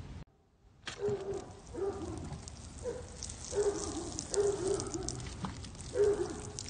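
Water poured from a jug splashing and pattering onto a potted plant and its soil. Low cooing bird calls repeat about once a second over it.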